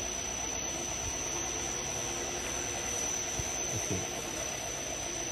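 Lab-scale 2-litre Z-blade (double sigma blade) mixer running with its blades turning in reverse, driven by a Siemens motor through a reducer. It gives a steady mechanical whir with a constant thin high whine over a low hum.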